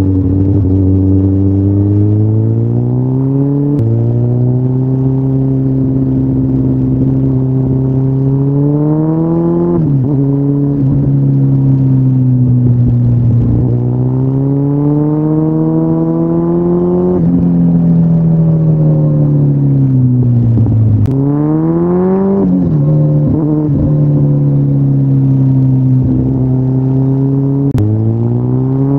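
2013 Kawasaki Ninja ZX-14R's inline-four engine running through Yoshimura aftermarket mufflers under way. The exhaust note climbs under throttle and drops abruptly at gear changes several times. It sags slowly when off the throttle, and once falls and then jumps sharply back up.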